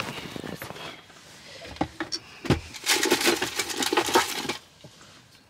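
Small hard objects clinking, knocking and rattling as they are handled, with a dense run of rapid clicks and rattles about three to four and a half seconds in.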